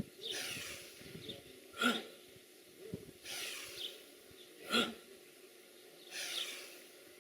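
A person's forceful voiced exhalations: a short huff about every three seconds, pushing the air out as the rib cage drops in a qi gong movement, with breathy rushes of air between them.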